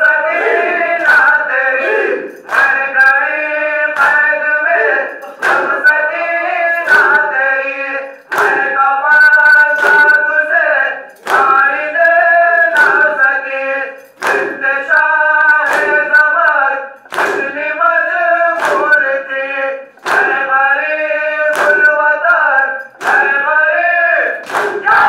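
Men singing a noha in unison, kept in time by a regular beat of open-hand slaps on the chest (matam) from the mourners.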